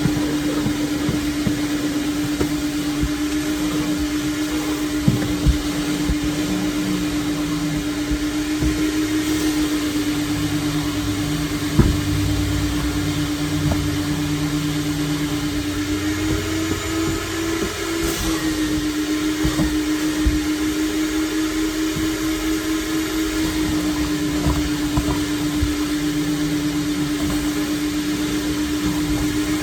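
Vacuum cleaner motor running with a steady hum while vacuuming a car's interior, its pitch rising briefly a little past the halfway point. Scattered sharp knocks and clicks come through, the loudest about twelve seconds in.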